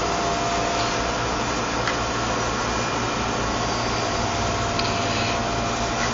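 A small three-yard Vormag Schiffli embroidery machine running: a steady mechanical whir from its cams and stitching mechanism.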